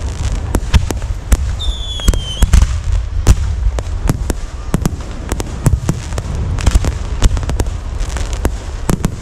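Fireworks going off: a rapid run of sharp bangs and crackles over a steady low rumble, with a high whistle falling slightly in pitch about two seconds in.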